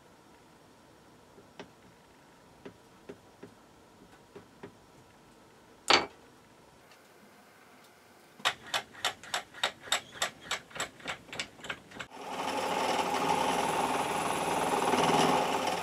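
Mallet tapping the aluminium workpiece in the mill vise to set it square: one sharp knock, then a quick run of about fourteen light taps, about four a second, getting softer. About twelve seconds in, the Dore Westbury milling machine starts and runs steadily.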